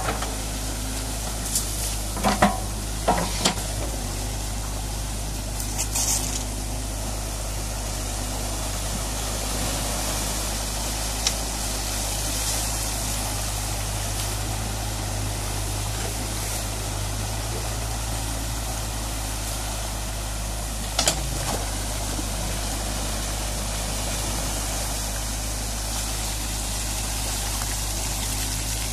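Water rushing steadily through a breach in a beaver dam, with an excavator's engine running at a steady low hum underneath. A few sharp knocks stand out, a cluster about two to three seconds in and one at about twenty-one seconds.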